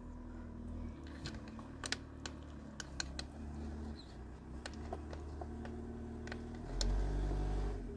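Scattered light clicks and taps of a hand tool and metal parts while the bolts of a hydraulic clutch release bearing are fitted and tightened on the gearbox, over a faint steady hum. A louder low rumble comes in near the end for about a second.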